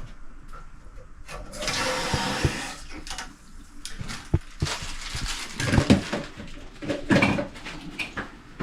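Toilet tank being worked on: a brief rush of water about two seconds in, then a run of plastic clicks and knocks with more splashes and hissing as the faulty fill valve is swapped for a new one.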